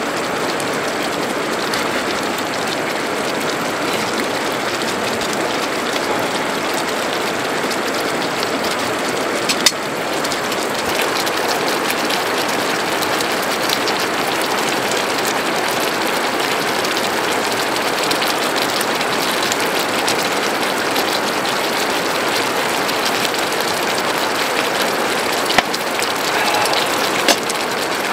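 Spicy webfoot octopus and beef large intestine sizzling in a pan over a gas burner: a steady, dense crackle. A few sharp clicks stand out, one about a third of the way in and two near the end.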